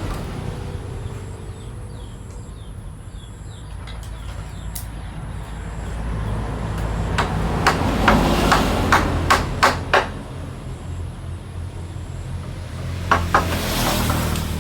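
Hammer striking wood: a quick run of about seven sharp knocks in the middle and two more near the end, over a steady low rumble of traffic.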